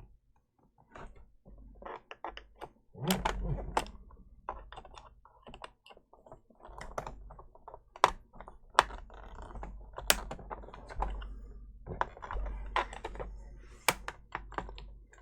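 Irregular plastic clicks, taps and a few dull bumps from a Toshiba laptop being handled while the screw holding its keyboard is worked loose with a screwdriver.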